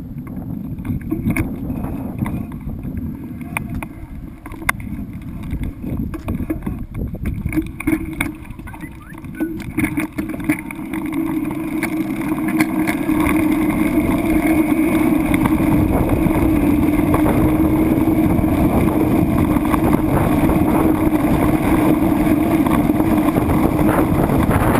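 A boat's engine running, rising to a louder, steady hum about halfway through, with wind buffeting the microphone and scattered knocks earlier on.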